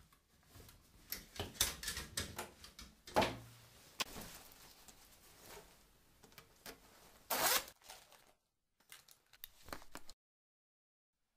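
Clothes handling as someone dresses: rustling fabric and small clicks and knocks, with a short rasp of a zip being done up about seven seconds in. The sound cuts off suddenly about ten seconds in.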